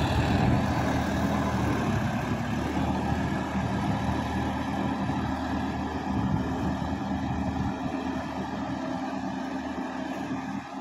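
Compact farm tractor's diesel engine running steadily as it drives a rotary tiller through flooded paddy mud and water, growing gradually fainter as it moves away.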